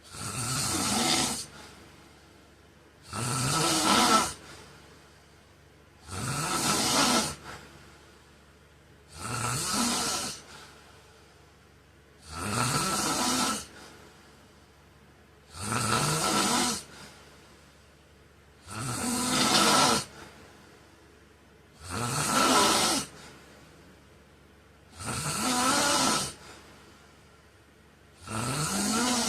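A man snoring in his sleep: ten snores about three seconds apart, each lasting about a second and rising in pitch.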